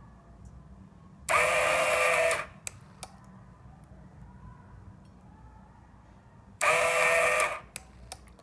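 Small DC water pump of an automatic bottle-cap filling machine, switching on twice for about a second each time to dispense water into a cap. It gives a steady buzzing whine with a hiss, and stops abruptly each time. Short light clicks follow each run.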